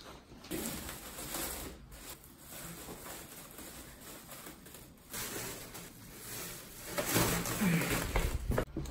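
Black plastic garbage bag rustling and crinkling as it is tied shut and lifted, getting louder about five seconds in.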